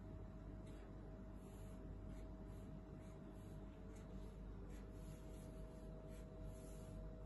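Felt-tip marker drawing short strokes on a paper plate, faint scratches and taps at irregular intervals over a steady low hum.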